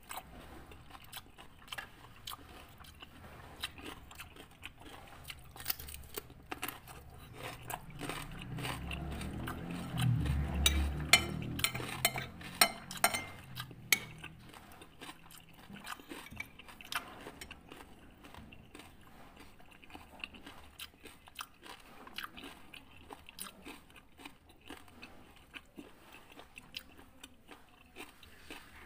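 Close-miked chewing and biting of food, small wet clicks throughout, with a run of loud crisp crunches about a third of the way in as a raw cucumber is bitten and chewed.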